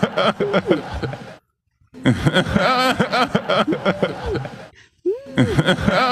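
A man's chuckling laughter, the same short burst repeating: it breaks off about a second and a half in, starts again at two seconds, stops briefly near five seconds and starts over once more.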